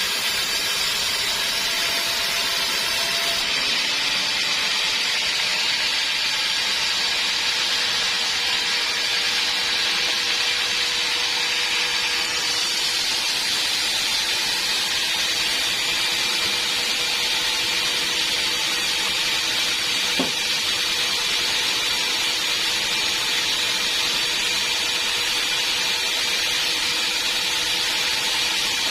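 Sawmill bandsaw running steadily through wood, a continuous hiss with a faint steady hum under it, and a single brief knock about twenty seconds in.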